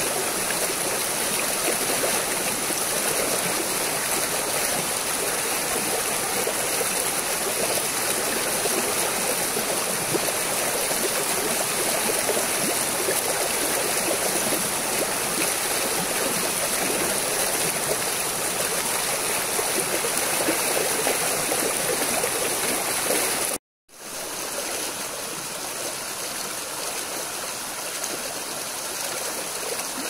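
Shallow stream rushing steadily over flat rock. About three-quarters through, the sound cuts out for a split second and returns slightly quieter as a small cascade splashing over mossy rocks into a pool.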